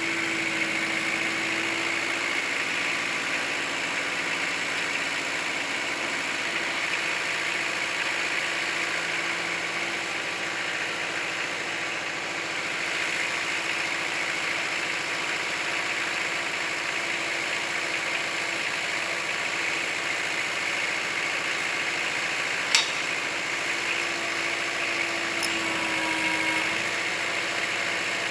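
Kubota L4600 tractor's diesel engine running steadily, with a single sharp knock about 23 seconds in.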